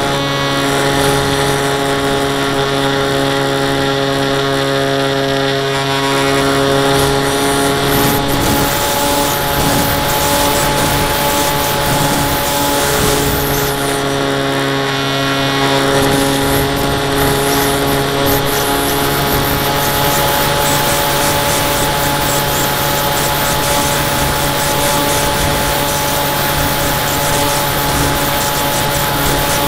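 Zeta Phantom FX-61's electric pusher motor and propeller running at a steady whine, mixed with wind rush over the airframe, as picked up by the camera riding on the plane in flight.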